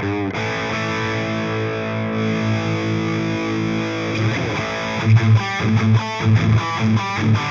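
Distorted electric guitar played through the Anvil amp-simulator plugin. A chord rings out for about four seconds, the pitch slides, and then short, choppy low chords are struck about three times a second.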